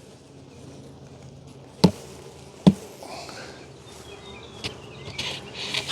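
Honeybees buzzing steadily around an open hive, with two sharp knocks about two seconds in and a few lighter clicks later.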